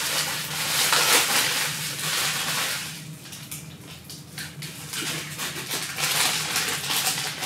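Plastic packaging crinkling and rustling as a boxed Kyosho Mini-Z car body is unwrapped by hand, dense crackling that eases off about three seconds in and picks up again a second or so later.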